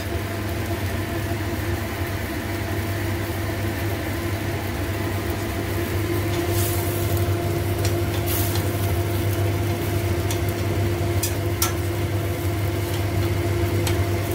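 A steady machine hum with a constant tone runs throughout, over the light bubbling of a pan of beef and glass noodles simmering in sauce. A few short clicks come in the second half.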